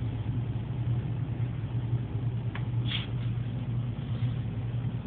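A steady low hum over even background noise, with a faint click about two and a half seconds in and a short faint high sound just after.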